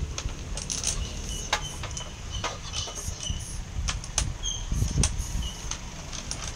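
Domino tiles clacking against one another and on a wooden tabletop as they are gathered up and put into their box, a string of sharp clicks at uneven intervals.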